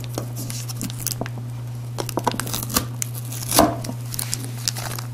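Packaging crinkling and rustling, with scattered small clicks, as the SSD's accessories are taken out of the box; one louder rustle about three and a half seconds in.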